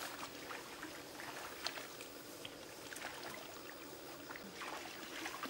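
Soft, steady rustling with scattered small clicks and light splashes as hands work through wet rice plants in a paddy.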